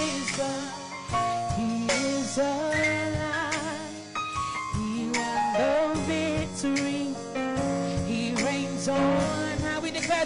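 A woman singing a gospel song into a handheld microphone, holding long notes with vibrato, over steady instrumental backing.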